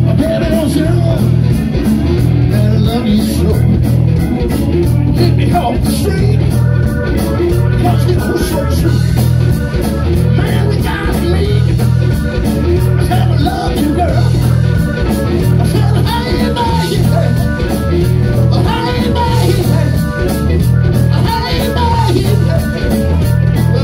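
Live rock band playing loudly with electric guitar, electric bass and drums keeping a steady beat.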